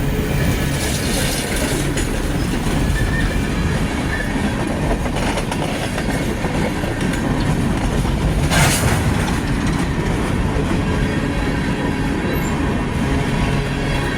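Union Pacific coal train rolling past: a steady, loud rumble of wheels on rail with clickety-clack and faint wheel squeal. A brief, sharper screech or clank stands out about eight and a half seconds in.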